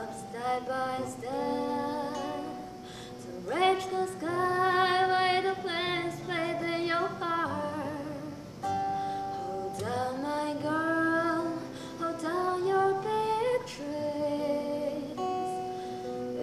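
A woman singing a slow melody to her own acoustic guitar, holding some notes with vibrato in the middle.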